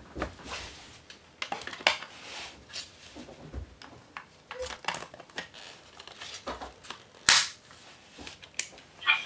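A plastic Talking Tom toy cat being handled: irregular clicks, knocks and rustles as it is picked up and turned, with one sharper knock about seven seconds in.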